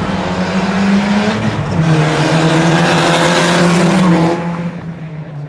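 Two cars accelerating hard away from a drag-race start line, engines at high revs with tyre squeal. One car passes close by, and the noise dies away after about four seconds.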